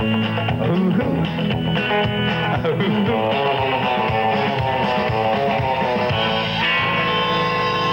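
Live rock and roll band with electric guitar playing the closing bars of a song; about two-thirds through a note slides up and the band settles into a long held final chord.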